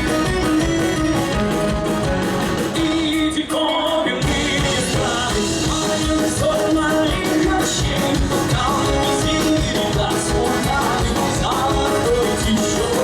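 Rock band playing live, with singing over the band. The low end drops out briefly about three and a half seconds in, then the full band comes back.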